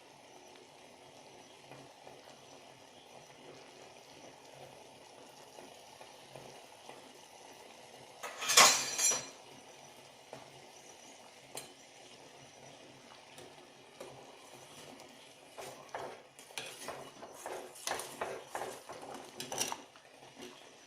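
Metal kitchen utensils clattering against a pot: one loud clatter about eight seconds in, then a run of clinks and scrapes over the last five seconds. Under it is a faint steady background.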